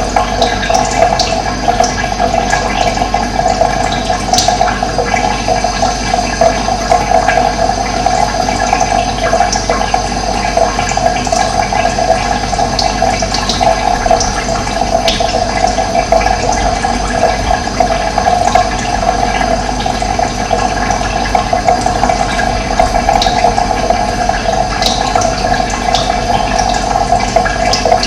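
Running water rushing steadily, with short high-pitched ticks scattered over it.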